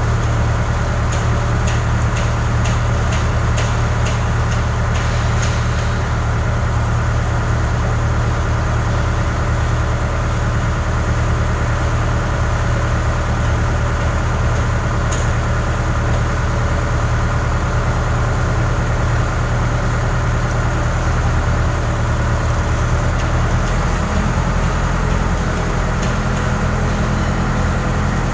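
Case 580 Super K backhoe's diesel engine running steadily under throttle, with faint rattling ticks in the first few seconds and a shift in the engine's low tone near the end.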